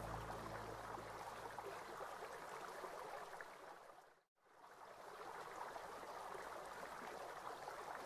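Faint steady water sound, a trickling stream with fine droplet ticks. It fades out to silence about halfway through and fades back in.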